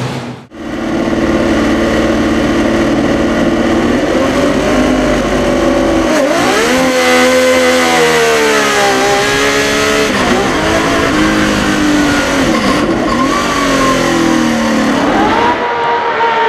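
The 1972 Tecno PA 123/3 Formula One car's 3-litre 180-degree V12 engine, heard on board. It runs steadily at first, then revs up and drops back several times as the car accelerates and lifts around the circuit. After a brief dropout about half a second in, the engine sound carries on to the end, and about a second before the end it is heard from trackside instead.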